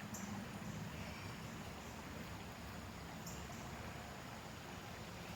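Quiet outdoor park ambience: a steady low hiss with a few faint, brief high chirps of small birds.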